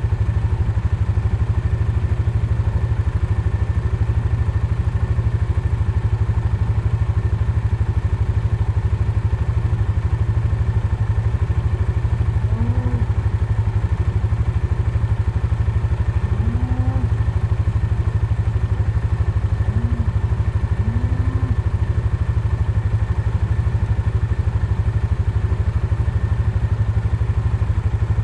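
Steady hum of a running vehicle engine with some rattle. A few faint, short, low calls come through it about halfway in.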